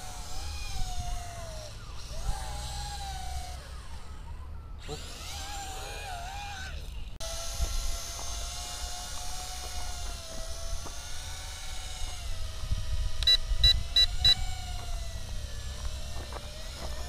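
JJRC Tarantula X6 (H16) quadcopter's motors and propellers whining overhead, the pitch wavering up and down as the drone drifts and fails to hold itself steady, a fault the owner puts down to a defective receiver board. Near the end, four short high beeps come from the transmitter as its trim buttons are pressed.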